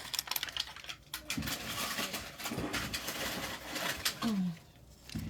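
Plastic packaging crinkling and rustling, with small clicks as little plastic parts are unwrapped and handled. A short low sound dips in pitch near the end.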